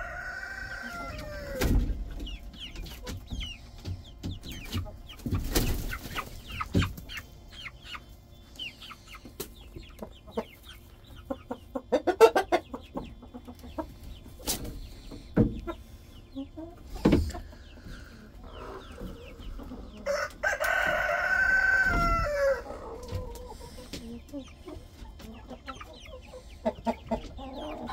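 Rooster crowing: the end of one crow trails off in the first second and a half, and a full, loud crow of about two and a half seconds comes about twenty seconds in. In between, chickens cluck softly amid scattered sharp knocks.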